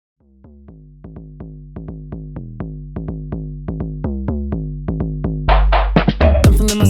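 Electronic pop backing music: a repeating pattern of short plucked synth notes over a bass line, building in loudness, with a fuller drum-machine beat coming in about five and a half seconds in.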